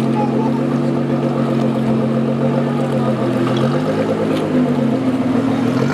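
Lamborghini Huracán's V10 engine, fitted with an Akrapovic exhaust, running at a steady speed with a deep, even drone; its pitch dips and rises briefly about four seconds in, then settles again.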